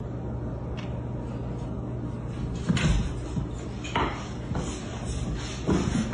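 A few sharp knocks and clatters, the loudest about three and four seconds in, over a steady low hum.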